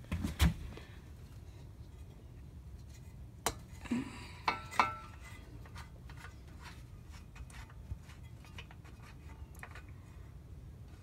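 Clicks and knocks of hard parts being handled, with a louder cluster about four to five seconds in and light ticking after: an oil filler cap and dipstick being worked during an oil-level check.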